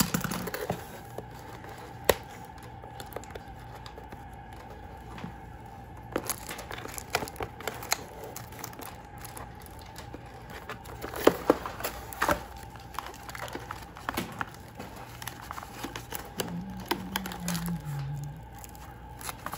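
Packing tape and cardboard on a taped-up cardboard box being cut with scissors and torn off by hand: irregular rips, crinkles and sharp snaps, some louder than others.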